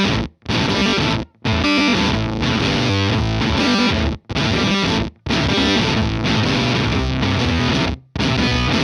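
Electric guitar played through an Earthquaker Devices Bit Commander octave synth fuzz pedal into a Vox AC30 amp: a heavily distorted riff in short phrases that cut off dead about five times.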